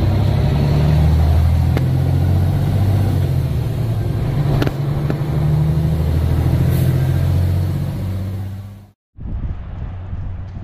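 Heavy truck's diesel engine running under way, heard from inside the cab of a Freightliner day cab, its note rising and falling a few times, with a few sharp clicks. About nine seconds in it cuts off suddenly, and a quieter steady rumble follows.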